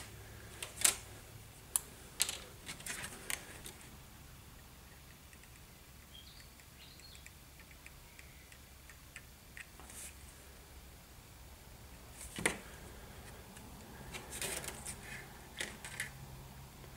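Light clicks and taps of thin plastic model-kit wall panels being handled and pressed together on a cutting mat: a scatter of small clicks in the first few seconds, a sharper tap about twelve seconds in, and another run of small clicks near the end.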